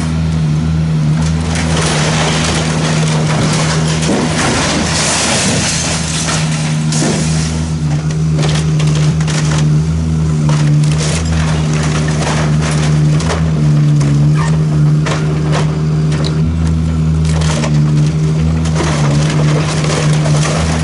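Demolition excavator's diesel engine humming steadily while its arm tears into a timber roof, with splintering wood and debris crashing down, heaviest from about two to seven seconds in, then scattered cracks and snaps of breaking timber.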